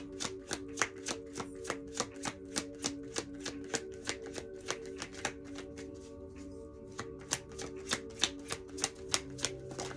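A deck of tarot cards being shuffled by hand: a quick, even run of sharp snaps, about three or four a second, over soft background music holding a sustained chord.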